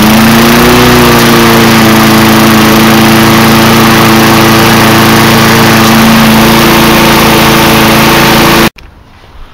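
Self-propelled walk-behind lawnmower's small engine running steadily just after starting on the first pull, its speed rising in the first second and then holding; a freshly tuned-up engine with its gas tank cleaned out. The sound cuts off abruptly near the end.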